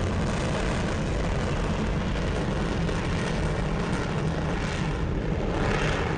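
Long March 7 rocket engines running in ascent: a steady, dense rumble and roar that holds an even level throughout.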